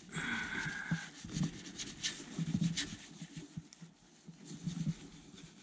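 Paper towel wiping and rubbing over the plastic side-mirror housing in short, irregular strokes, with a brief squeak in the first second.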